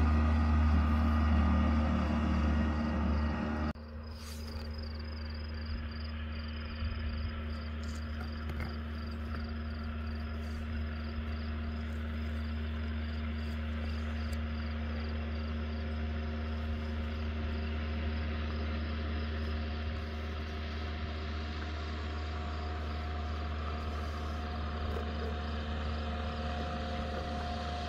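Outboard motor of a fishing boat running steadily on the river, a low even drone that drops a little about four seconds in. An insect chirps in a fast, even pulse for several seconds after that.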